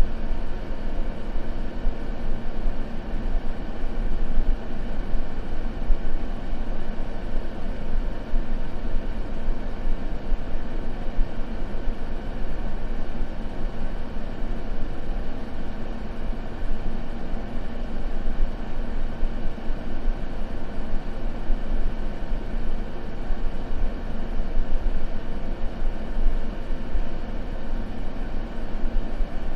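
Continuous white-noise ambience: a steady, even hiss weighted toward the low end, with no crackles or breaks.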